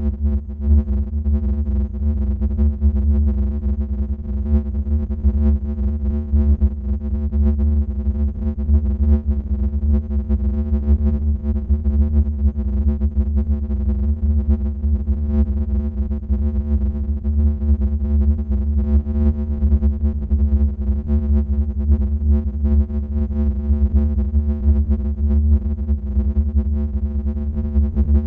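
Steady synthesizer drone for a scary sound effect: a heavy, deep bass layer under a stack of held tones that does not change.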